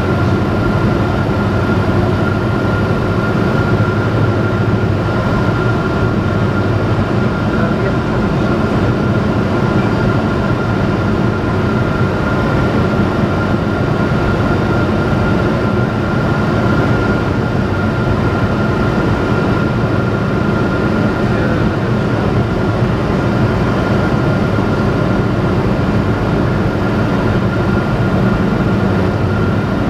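Robin DR400 light aircraft's piston engine and propeller running steadily in flight, heard from inside the cockpit as a constant loud drone with a thin steady high whine over it.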